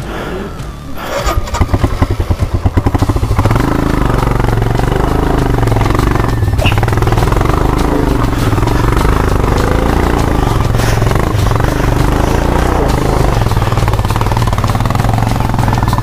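Motorcycle engine revved hard in a few sharp blips about a second in, then running loud and steady with small rises and falls in pitch as it pulls up a steep rocky off-road climb.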